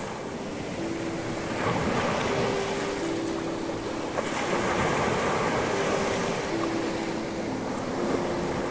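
Sea waves washing up onto a beach: a steady rush of surf. A soft melody of long held notes, changing pitch every second or so, runs over the surf.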